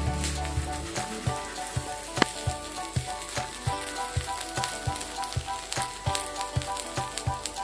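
Kimchi pancake sizzling in a frying pan, a steady hiss, under background music with a steady beat.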